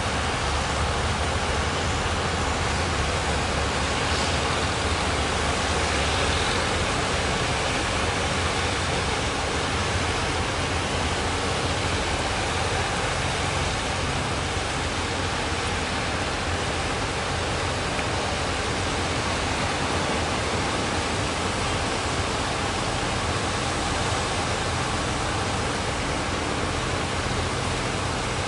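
Sea surf breaking and washing on a beach, a steady continuous rush of noise, with a deeper rumble underneath in the first few seconds.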